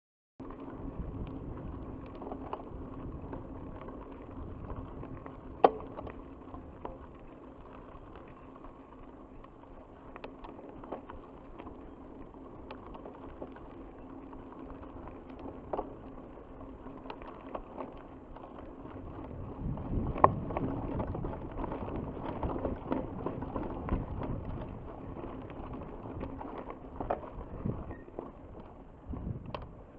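Mountain bike rolling over a gravel and dirt track: steady tyre noise and rattling from the bike, with sharp knocks over bumps, the loudest about six seconds in and again about twenty seconds in. It gets rougher and louder for a few seconds from about nineteen seconds in.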